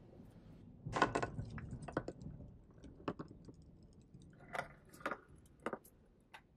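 Gloved hands handling a vintage metal first aid tin and its contents: a quick cluster of light clicks and clatters about a second in, then scattered taps and small rattles, a few with a brief thin metallic ring.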